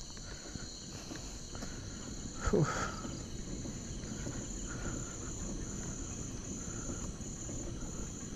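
Crickets chirring steadily in a continuous high pulsing drone, with a brief falling vocal sound from a person about two and a half seconds in.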